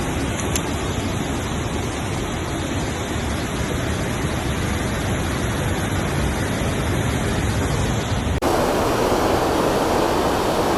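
Steady rushing noise of water pouring through a spillway. About eight seconds in, the noise abruptly turns brighter and a little louder.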